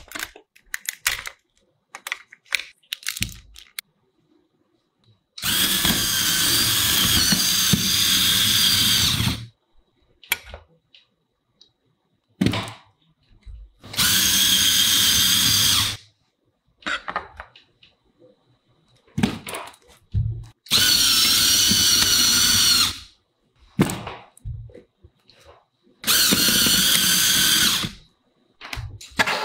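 Small electric motors of a Lego car whining through their gears as they drive the wheels, in four separate runs: one of about four seconds, then three of about two seconds each. Short clicks and knocks come between the runs.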